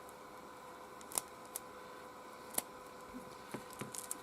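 Scattered light clicks and taps from handling a travel hairdryer and its mains plug and cord, two distinct clicks in the first few seconds and a quick cluster near the end, over a faint steady hum.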